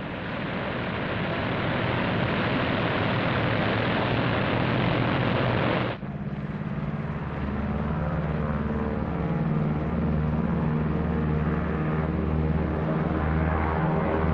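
Four-engine B-17 drone's piston radial engines running, first as a steady rushing roar. About six seconds in the sound cuts abruptly to a steady, lower drone of several overlapping engine tones.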